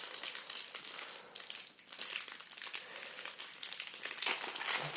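Crinkling and scratchy rustling of a foil trading-card pack and its cards being handled and slid through, a quick run of small scrapes with a short lull about two seconds in.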